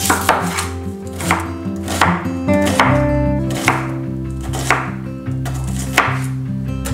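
Chef's knife chopping an onion on a wooden cutting board, with irregular sharp knife strikes roughly once a second. Background music plays underneath.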